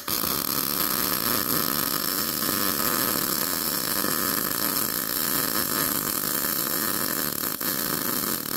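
ArcCaptain MIG 200 welding arc, struck abruptly at the start and running steadily through a fillet weld on 1/16-inch mild steel thin-wall square tubing. The torch is moved in a small looping cursive-e weave.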